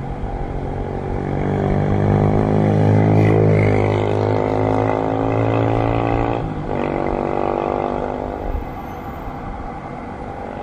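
An engine drone that swells to its loudest a few seconds in, breaks briefly with a shift in pitch about six and a half seconds in, then fades away.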